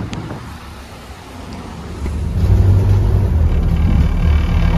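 Scania OmniCity double-decker bus's diesel engine running with a steady low drone, heard from inside the bus. It gets much louder about two seconds in.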